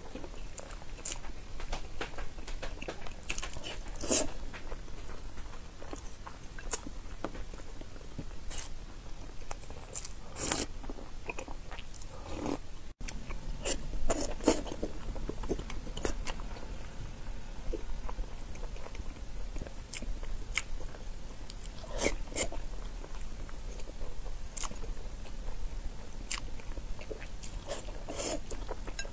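Close-miked eating sounds of a person chewing and biting into peeled boiled eggs in chili sauce, wet mouth noises with irregular sharp clicks.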